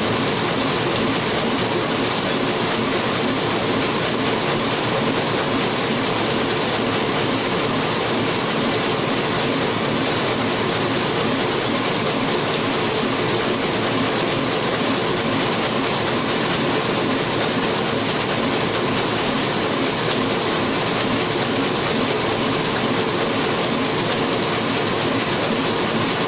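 Heidelberg single-colour offset printing press running steadily, its rollers, cylinders and sheet feed making a loud, even, fast mechanical clatter.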